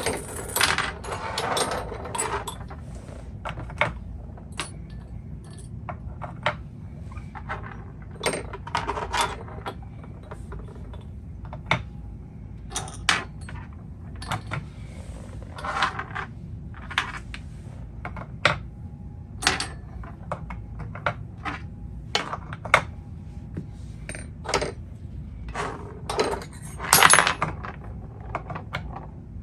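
Irregular hard clicks and clinks of screwdrivers being handled and set into a wooden rack, with one knock roughly every second and a louder knock near the end.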